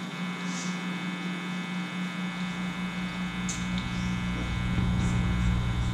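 Steady electrical hum and buzz from the PA system's microphone channel. A low rumble comes in about two seconds in.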